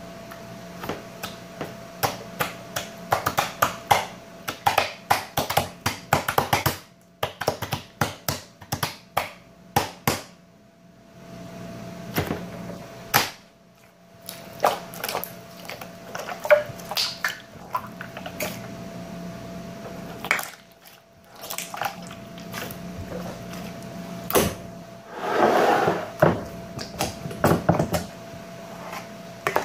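Hands kneading, pressing and pulling slime on a tabletop, giving clusters of sticky clicks and pops, with a longer squish near the end. A faint steady hum runs underneath.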